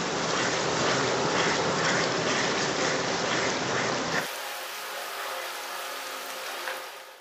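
A wooden spatula stirs a simmering tomato-onion masala in oil in an aluminium pot, making a steady wet sizzling and sloshing. About four seconds in the sound drops to a quieter, thinner hiss, and it fades out at the end.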